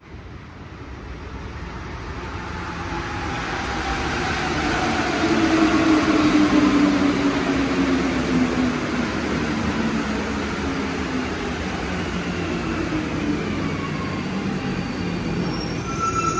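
Alstom NS-16 metro train pulling into the station. It grows louder over the first six seconds as it arrives, and its running whine falls steadily in pitch as it slows alongside the platform.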